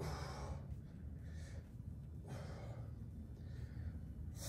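A man breathing in and out, about one breath a second, over a steady low hum.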